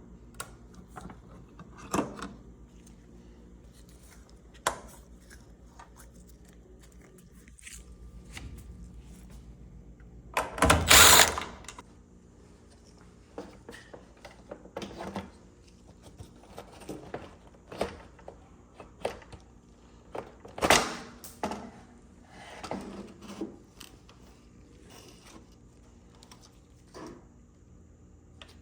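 Clicks, knocks and clunks of a clothes dryer's panels and screws being handled during disassembly, with a burst of about a second from a power driver about eleven seconds in.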